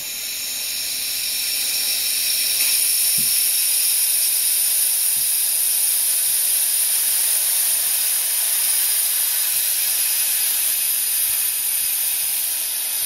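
Compressed air from a tank at about 165 psi hissing loudly and steadily out of a newly plumbed air filter and regulator assembly, building up over the first couple of seconds and then holding: a pretty big leak, caused by the filter and regulator units being fitted against their flow-direction arrows.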